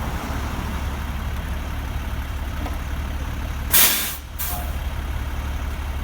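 Heavy truck's diesel engine running steadily with a low rumble, and a loud burst of air-brake hiss just under four seconds in, followed by a shorter second hiss.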